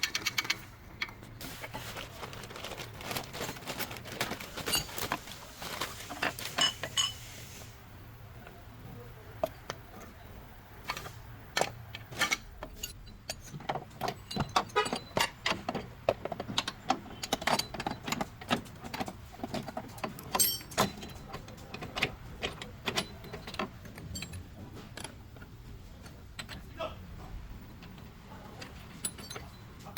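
Irregular metallic clicks and clinks of hand tools and parts being worked on a Toyota Land Cruiser's front lower control arm, some coming in quick runs of taps.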